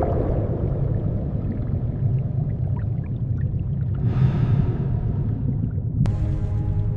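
Low, steady underwater rumble, with a rushing whoosh about four seconds in. Near the end a sharp click, then steady sustained music tones begin.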